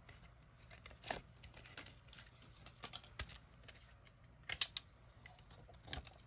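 Hands handling CD packaging and cards: scattered small clicks, taps and brief rustles, with a sharper click about a second in and the loudest one about four and a half seconds in.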